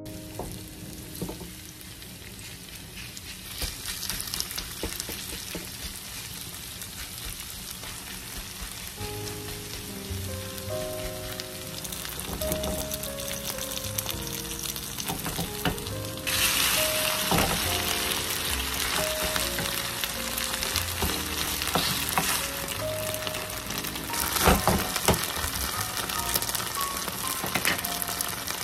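Vegetable and seafood pancake batter frying in oil in a non-stick pan, sizzling steadily. The sizzle grows louder and brighter a little past halfway, under light background music.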